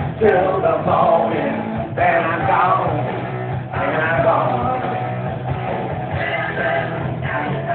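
Heavy-metal rock song playing: singing over electric guitar and drums, with long gliding vocal or guitar lines.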